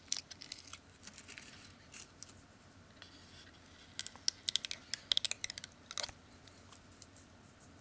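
A small hand tool scraping and picking leftover double-sided adhesive tape off a smartphone's front frame. It makes scattered light clicks and scratches, with a quick run of ticks about four to five and a half seconds in.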